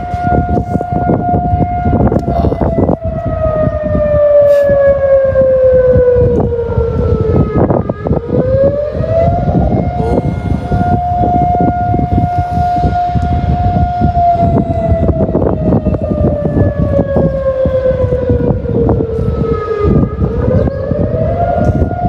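Civil air-defence siren sounding the air-raid alert signal in a test. A steady wailing tone is held for several seconds, then slides down in pitch as it winds down, and climbs back up to hold again, twice.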